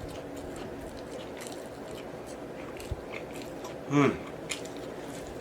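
Close-miked chewing and mouth sounds of a person eating a BBQ rib sandwich, with scattered small wet clicks. A short hum of voice comes about four seconds in.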